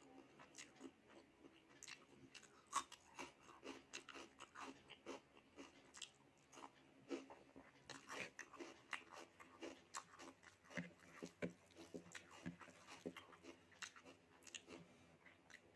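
A person chewing and biting food close to the microphone, with frequent quiet crunches and wet mouth clicks.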